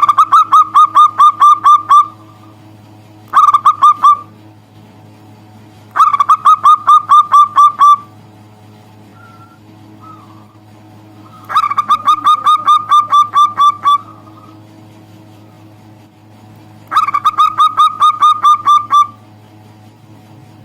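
Zebra dove (perkutut) calling: five loud bursts of rapid staccato cooing notes, each run lasting about one to two seconds with short pauses between, over a steady low hum.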